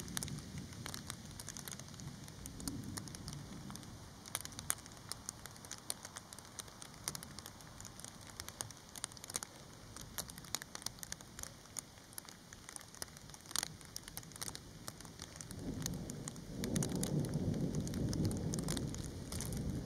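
Thunderstorm: light rain with scattered drops ticking, and low thunder rumbles, one fading out over the first few seconds and a louder one building about three-quarters of the way through.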